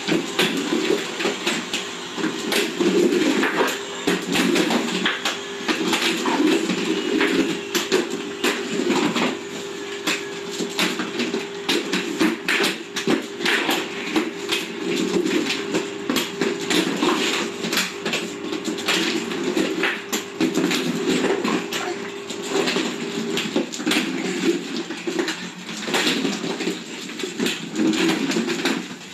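Quad roller skate wheels rolling on a tiled floor: a steady rumble, with frequent clicks and knocks as the skates cross the floor and the skater turns.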